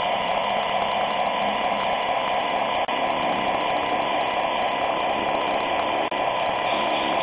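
Lenz V36 all-metal O-scale model diesel locomotive running slowly along the track: a steady whir of its motor and running gear.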